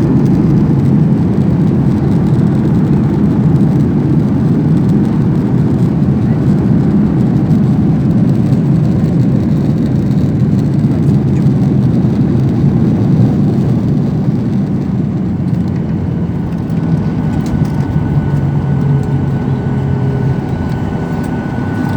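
Loud, steady cabin rumble of a Boeing 737-800's CFM56 jet engines and airflow during the arrival at the airport, easing slightly a little past the middle. A faint steady high whine comes in near the end.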